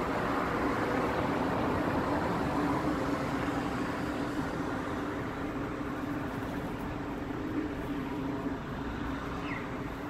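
Steady street traffic noise with a low, continuous engine hum, slowly getting quieter.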